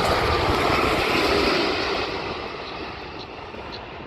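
Airplane engines passing close by, a loud roar with a tone that falls in pitch, fading away after about two seconds.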